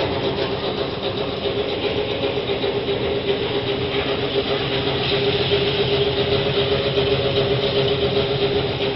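Cocoa bean peeling machine running steadily: a constant motor hum under a dense, even mechanical whir.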